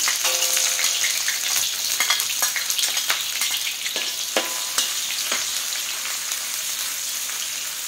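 Sliced shallots sizzling in hot oil in an aluminium wok, stirred with a metal spatula that scrapes and clicks against the pan. The sizzle is loudest as the shallots go in and eases off gradually.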